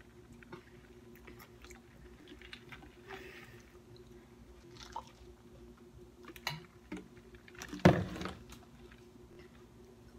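Gulping and swallowing as someone drinks from a large bottle, with scattered small clicks and one sharp knock about eight seconds in.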